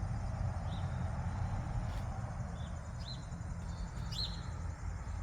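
Faint, scattered bird chirps, short and high, every second or so over a steady low hum.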